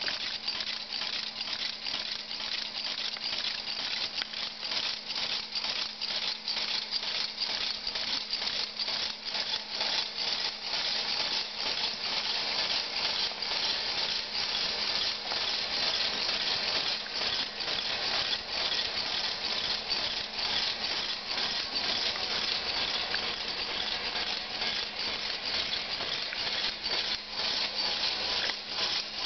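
Kinetic sculpture of thin metal rods and small metal pieces rattling and clicking continuously as its mechanism runs, a dense stream of small clicks over a faint steady hum.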